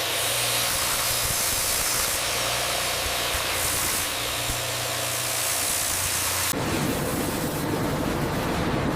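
Steady industrial machinery noise: an even hiss over a low hum. About six and a half seconds in it changes to a rougher, deeper rumble with less hiss.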